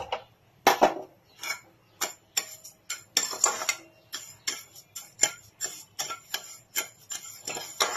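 Steel ladle scraping and knocking against a non-stick pan while stirring sugar and water into syrup, about three sharp strokes a second.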